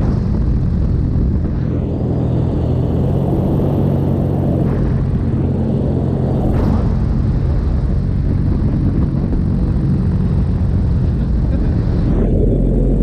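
Paramotor engine and propeller running steadily in flight, with wind rumbling over the microphone.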